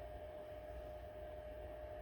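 Faint steady hum with a thin, even tone held over it, and no other sounds.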